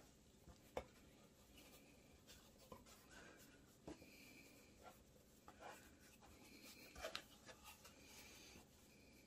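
Near silence with faint rubbing and a few soft taps: hands pressing a sheet of pastry into a pie dish.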